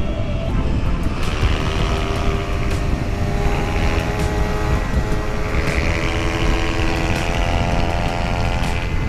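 Motorcycle engine running under throttle at riding speed, heavily buffeted by wind on the microphone. A steady engine note comes up about a second and a half in and fades near the end.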